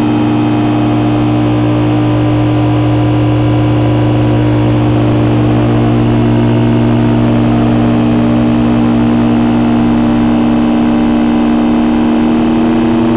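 Heavy electronic drone noise from a Hewlett-Packard 200C tube audio oscillator fed through Frequency Analyzer units. It is a loud, unbroken low hum with several held tones over a dense buzzing bed. One upper tone slides slightly higher near the end.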